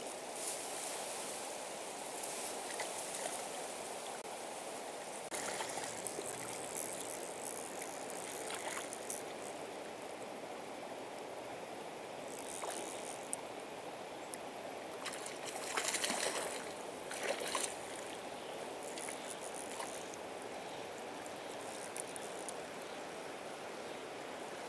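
Steady flow of a river current, with short bursts of splashing at the surface from a hooked brown trout being played on a fly rod. The splashing is loudest about two thirds of the way through.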